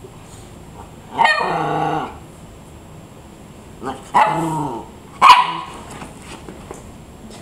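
Small rat terrier-type dog barking three times: a long, drawn-out bark about a second in, then two shorter barks around four and five seconds in.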